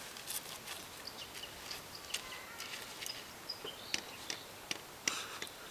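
Quiet outdoor ambience with scattered light crunches and clicks, like small footsteps and rocks shifting on gravelly dirt, and a few faint high chirps.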